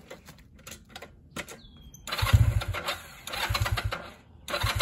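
Small motorcycle being kick-started: a few clicks and knocks, then from about two seconds in three short bursts of the engine turning over and sputtering, each dying away without catching.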